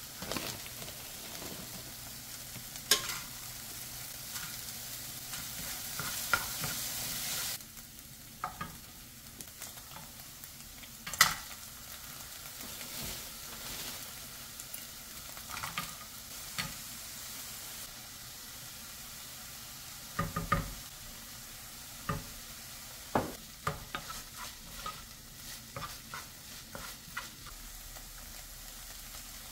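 Cauliflower rice and crumbled tofu sizzling in a nonstick frying pan while being stirred with a wooden spoon, which knocks against the pan now and then. The sizzle is louder for the first seven or so seconds, then settles lower.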